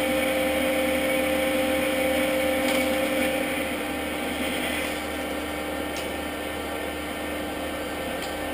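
Metal lathe running steadily, its spindle and gearing giving a constant whine over a mechanical hum; the sound eases a little about halfway through.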